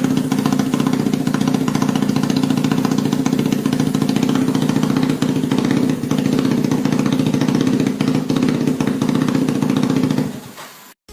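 Supercharged Yamaha Y15ZR's 150 cc single-cylinder four-stroke engine running steadily at one speed through its exhaust, then dying away near the end.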